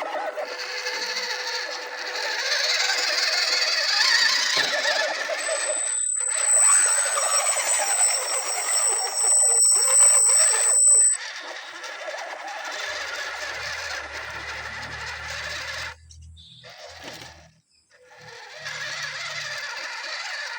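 Radio-controlled scale crawler's electric motor and geared drivetrain running in spurts, with a thin high whine partway through. It stops briefly a few times between pushes of the throttle.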